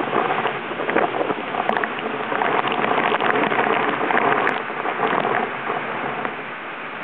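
Hurricane wind and rain buffeting a camera left outside, with rain spattering on its body in a dense crackle. It swells through the middle and eases near the end.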